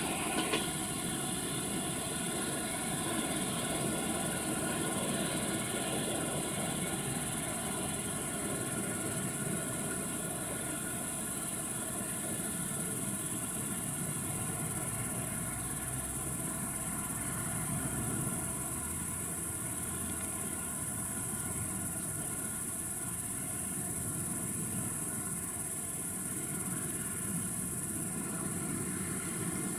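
Suburban electric multiple-unit train running away along the track, a steady rumble of wheels and motors with a faint mechanical hum as it recedes. A steady high-pitched hiss runs underneath.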